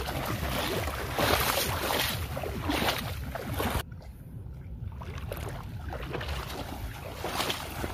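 Water splashing and sloshing around legs wading through shallow floodwater, with wind rumbling on the microphone. The high hiss drops away abruptly a little before four seconds in.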